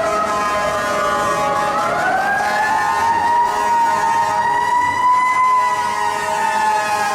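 Federal Q2B mechanical siren on a fire rescue truck, wailing loudly: it sinks in pitch over the first second and a half, winds back up to a high steady wail, and dips slightly near the end. Steadier horn-like tones sound beneath it.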